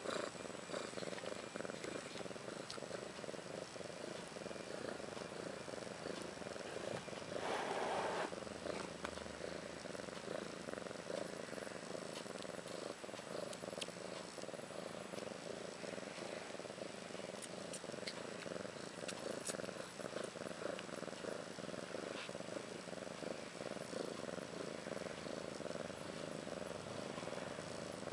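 Mother cat purring steadily while nursing her newborn kittens, with one brief louder sound about eight seconds in.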